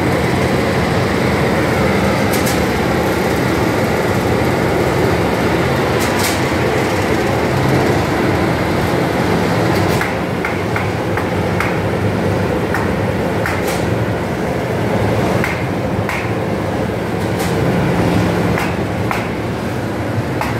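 Cotton seed dryer plant running: a steady, loud machine drone with a low hum from its motors and blowers. Scattered sharp clicks and knocks sound over it, more often in the second half.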